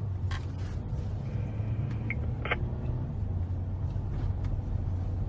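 Steady low rumble of a running vehicle engine, with a couple of faint clicks.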